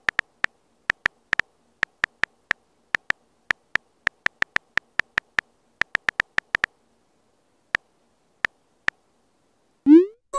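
Phone on-screen keyboard key-click sounds: a quick run of short, identical beeping taps as a message is typed, then a few slower taps after a pause. Near the end a short rising swoosh plays as the message is sent.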